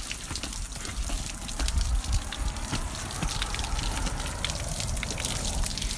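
Water gushing and splattering out of an RV water heater's drain opening while a flushing wand rinses the tank, washing out sediment. A steady rush of water with scattered splashes over a low rumble.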